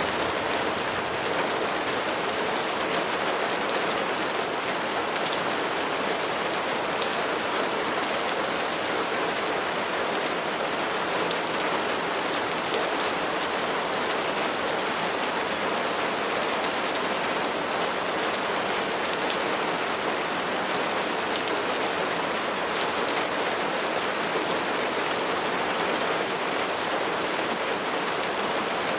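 Steady rain falling on a surface: an even hiss with scattered individual drops ticking through it.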